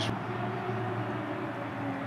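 Steady crowd noise of a football stadium: a continuous even hum of spectators with no distinct shouts or chants.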